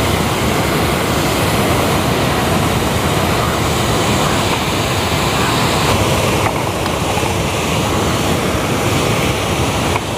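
Steady rushing of water pouring over a lake's overflow weir, loud enough to drown out a voice.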